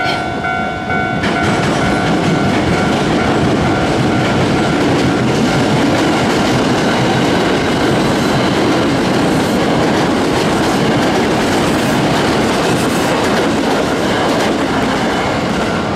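Hankyu electric commuter train running past close by at speed: a loud, steady rush of wheel-on-rail noise with clattering over the rail joints.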